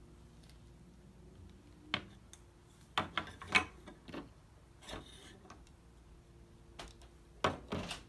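Scattered light clicks and taps of small toy pieces being handled. The sharpest knocks come about two and three seconds in and again near the end.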